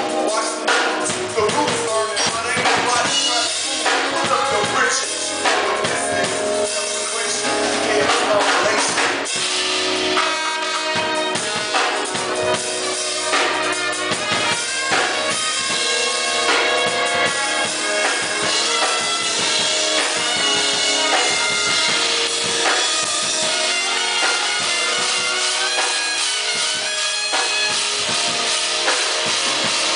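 Band music with a drum kit keeping a steady beat of bass drum and snare under sustained pitched instruments.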